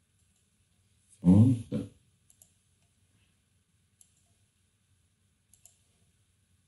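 A short vocal sound, a brief murmur, about a second in, then a few faint, sparse computer mouse clicks, some in quick pairs.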